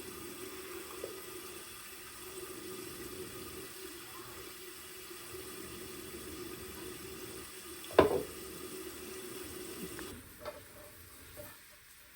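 Water running steadily from a tap into a sink, with one sharp knock about eight seconds in; the water stops about two seconds later, leaving a few light clicks.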